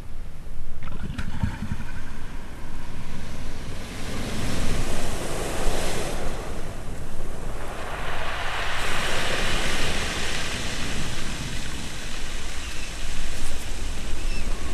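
Surf breaking and washing over a pebble beach, with wind rumbling on the microphone. The wash of the waves swells up in the middle and then eases.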